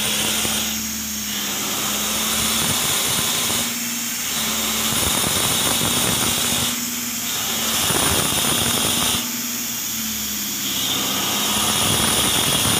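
Engine-driven high-pressure water jetter running steadily with a hissing spray while its hose flushes a sewer service line. The sound swells and eases about every three seconds.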